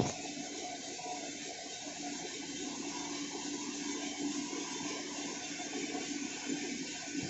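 Coffee roasting machine running: a steady rush of air with a low hum under it, and a single knock at the very start.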